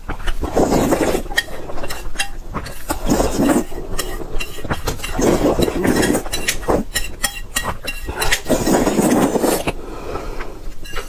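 A person slurping a large mouthful of spicy instant noodles in about four long, noisy sucking pulls, with short wet clicks and smacks between them.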